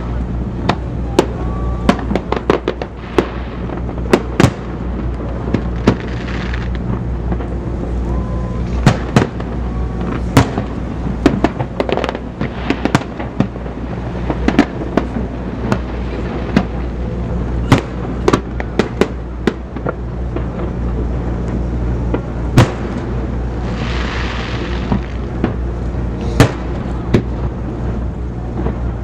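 Fireworks display: shells bursting one after another at uneven intervals, sharp bangs with echoing tails, over a steady low hum. About 24 seconds in, a hissing crackle lasts a second or two.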